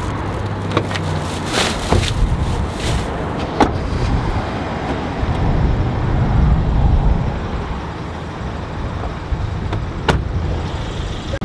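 Car running, heard from inside: a steady low rumble of engine and road noise, with a few sharp clicks and knocks.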